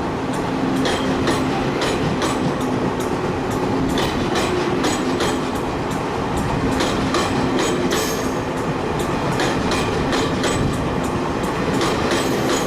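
Taiwan Railways electric train passing close by, with a steady motor hum under a dense run of wheel clicks over the rail joints.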